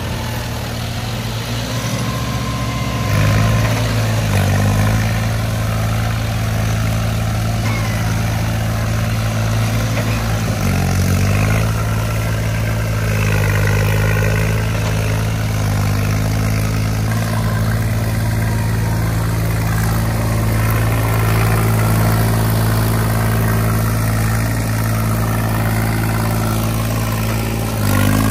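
Three-cylinder diesel tractor engines of a John Deere 5050 E and a New Holland 3630 working hard under load while towing out of deep mud. The revs rise about three seconds in and again about ten seconds in, over the churn of spinning tyres throwing mud and water.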